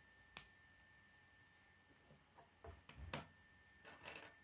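Plastic K'nex pieces clicking as rods and connectors are snapped together and handled: one sharp click about half a second in, then a run of clicks in the second half, the loudest a little after three seconds.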